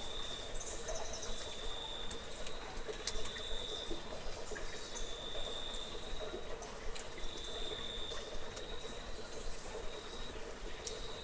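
Insects trilling in the night ambience of a cave: a high, even trill comes in bursts of about a second, repeating every second or two. Scattered sharp clicks and faint high chirps sound over a steady hiss.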